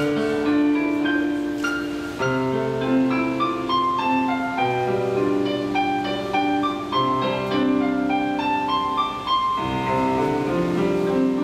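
Instrumental music led by piano, slow sustained notes with the chords changing every couple of seconds.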